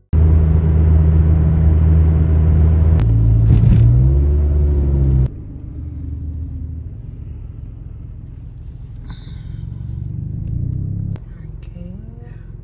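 Steady, loud low rumble of a car running, heard close to the microphone. It drops abruptly to a much lower level about five seconds in, and steps down again near the end.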